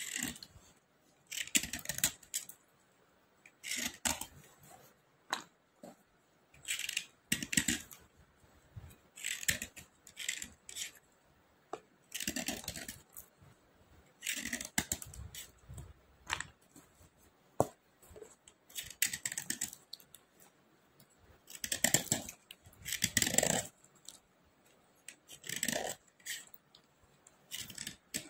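Dry slate pencils scraped by hand in short gritty strokes, one every second or two at an uneven pace.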